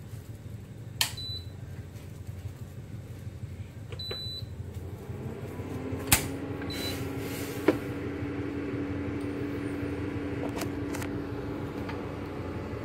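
A few sharp clicks and clinks around a stainless steel cooking pot, the loudest about six seconds in as a hand works over the pot, over a steady kitchen hum that gains a low steady tone about halfway through.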